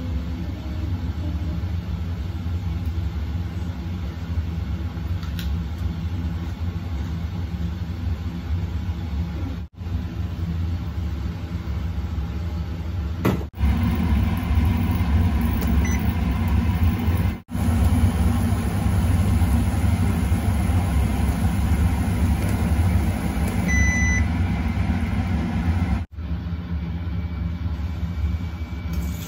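Steady low machine hum, louder from about 13 seconds in, with one short electronic beep a few seconds before the end.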